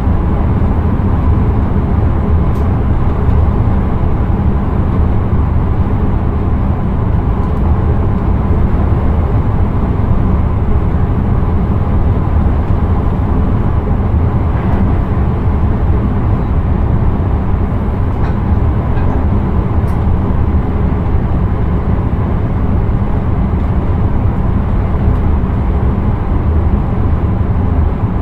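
Intercity train running steadily along the track, heard from inside the driver's cab as a constant low rumble with a faint steady whine above it.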